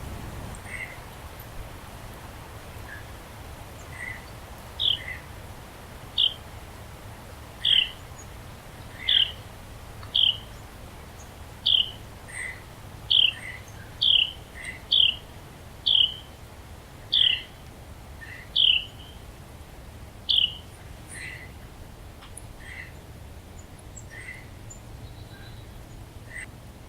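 A songbird calling: about a dozen short, falling call notes, roughly one a second, starting about five seconds in and stopping some six seconds before the end. Fainter, lower chirps from another bird are heard throughout.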